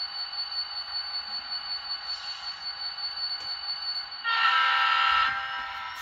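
Model diesel locomotive's onboard sound effects: the engine sound running as a steady pulsing hum, then one horn blast of about a second, a little over four seconds in.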